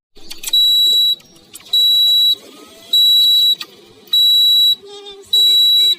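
Toyota Corolla's warning beeper sounding five high-pitched beeps on one steady note, each about half a second long and evenly spaced a little over a second apart.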